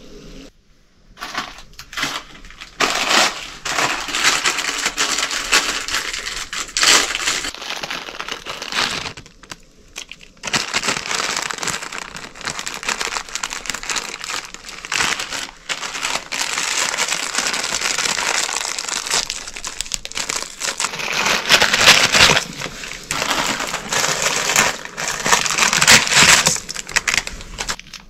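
Plastic packaging crinkling and crumpling in repeated bouts of a few seconds each, with brief pauses between.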